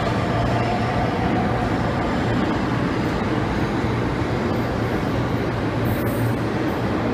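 CNR series 4000 metro train pulling out of an underground station platform. Its running noise is steady, with a low steady hum, and there is a brief high hiss about six seconds in.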